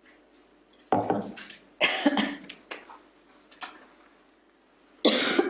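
A woman coughing: a cough about a second in, a second just before two seconds, and another sharp one near the end.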